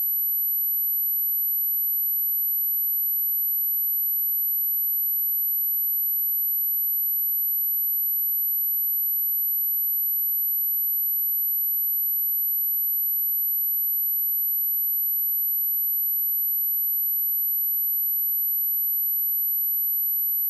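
A pure 11,831 Hz sine test tone: a single very high, steady whistle-like pitch held at constant level, played to test or clear a speaker.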